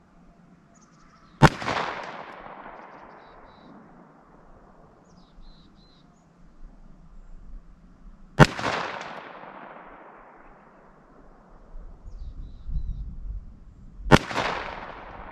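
Three single shots from a .45 Colt Ruger Vaquero revolver firing 250-grain jacketed hollow-point loads, fired slowly about six seconds apart. Each sharp report trails off in a long echo across the range.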